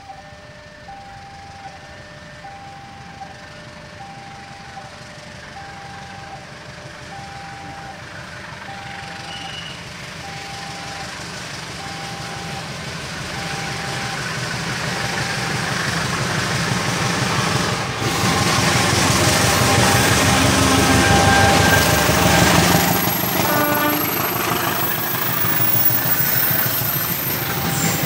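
A repeating two-tone electronic chime sounds about once a second while a diesel locomotive hauling a container freight train approaches, its engine growing steadily louder. The locomotive is loudest as it passes, about two-thirds of the way in, and then the container wagons roll by.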